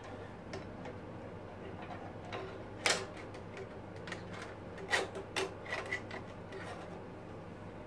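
Light metallic clicks and taps of a steel bandsaw blade being handled and seated on the wheels and guides of a Lumberjack BS254 bandsaw during a blade change, the sharpest about three seconds in and two more around five seconds. A steady low hum runs underneath.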